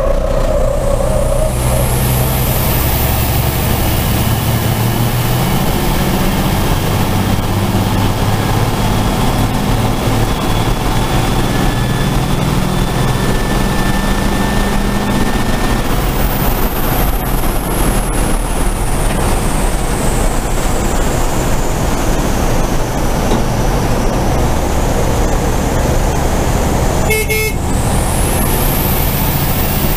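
Race truck's engine running hard under load, heard from inside the cab, with steady road and wind noise; the engine pitch shifts up and down as the truck goes through the corners and along the straight. A brief clatter comes near the end.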